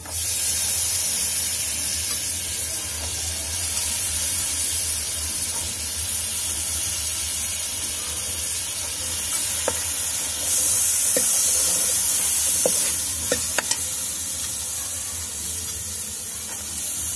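Shelled green peas tipped into a steel kadhai of potatoes frying in ghee and masala, setting off a loud sizzle that starts suddenly. The sizzle carries on as a steel ladle stirs, swelling louder for a couple of seconds about two-thirds through, with a few sharp clicks of the ladle against the pan.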